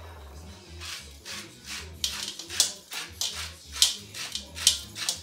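Salt grinder being twisted by hand over a mixing bowl: a regular run of short, gritty grinding strokes, about two to three a second.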